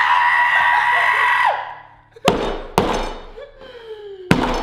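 A man's high-pitched scream, held at one pitch for about a second and a half, a pain reaction to extremely spicy ramen. It is followed by two sharp thumps, a falling whine, and another thump near the end.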